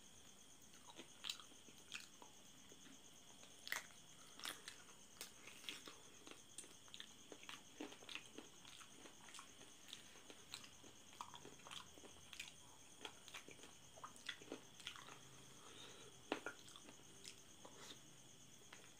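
Quiet, wet chewing and biting on sauce-covered chicken feet, with irregular sharp clicks and smacks from lips, teeth and skin.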